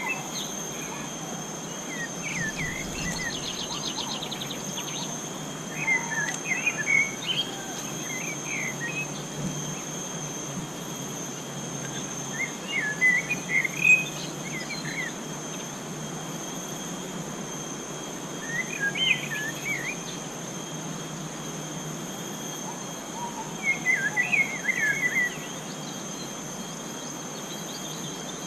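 Forest ambience: a bird calling in short bursts of chirpy, warbling notes every few seconds over a steady, high-pitched insect drone.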